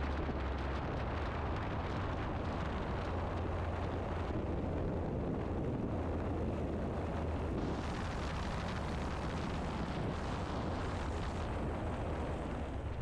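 Steady wind rush and low rumble on an exterior microphone of a light propeller aircraft, with its engine and propeller running, as it touches down and rolls out after landing.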